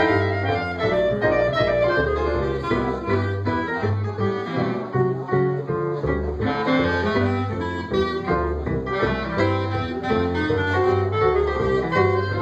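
A band playing an instrumental break between sung verses of a song, with no voice.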